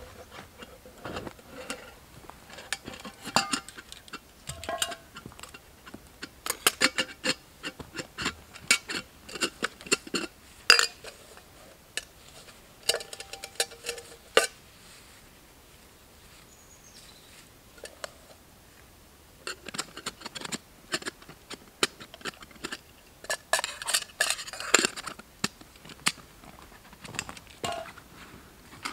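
Metal camp cookware and gear clinking and rattling as it is handled, in irregular bunches of sharp clinks, a few of them ringing briefly. The clinking pauses for a few seconds past the middle, then resumes.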